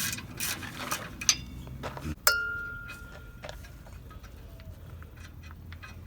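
Small metal parts and tools clinking and knocking, with one sharp metal strike a little over two seconds in that rings on a clear tone for about a second.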